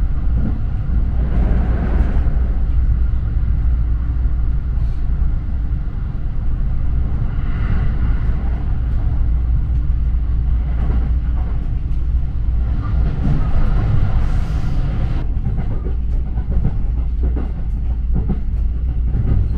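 Train running, heard from inside the passenger carriage: a steady low noise of the wheels on the rails.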